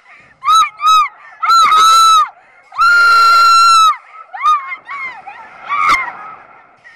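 Young women screaming on a giant swing ride: several short, high screams, a long held scream about three seconds in, then shorter, weaker cries.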